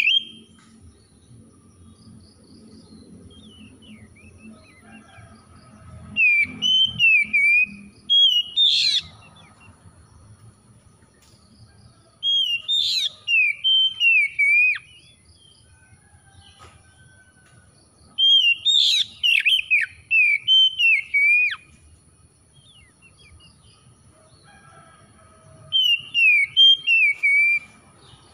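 Oriental magpie-robin singing in five bursts of loud, quick whistled phrases, each a couple of seconds long, with notes that sweep rapidly up and down, separated by quiet pauses of a few seconds.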